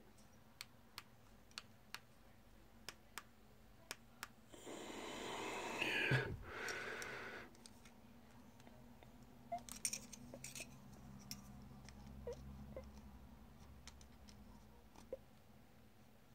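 Plastic BMW remote key fob being handled and pressed, giving a series of small sharp clicks, with a breathy rushing noise lasting a few seconds in the middle.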